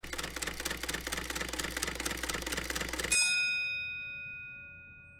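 A dense clattering noise over a low steady hum for about three seconds, cut off by a single bell-like ding that rings on and fades away over the next two seconds.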